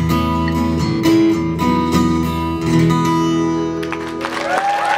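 Acoustic guitar strumming the closing chords of a live song, the music thinning out about four seconds in. Near the end the audience starts cheering and whistling.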